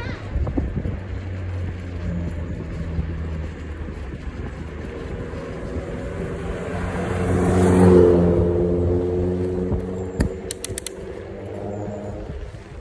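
A car approaching and passing the cyclist: its engine hum and tyre noise build to a peak about eight seconds in and then fade. A few sharp clicks follow about ten seconds in.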